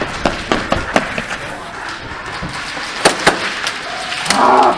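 Scattered sharp clicks and cracks at irregular intervals during an airsoft game, typical of gas airsoft guns firing and BBs striking, with a short shout near the end.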